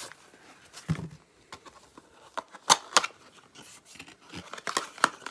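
Small cardboard packaging being opened and handled, with scattered sharp clicks and knocks as a boxed power adapter is taken out.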